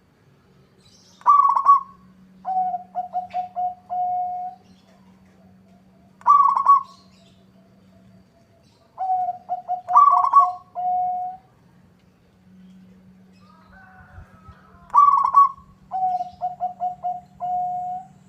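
Zebra dove (perkutut) singing: three songs, each opening with a higher note and running into a quick series of short staccato coos that ends on a longer held coo.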